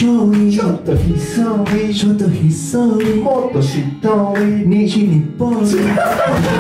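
Male voices performing a cappella: a stepping sung bass line and wordless harmonies over sharp mouth-made percussion hits.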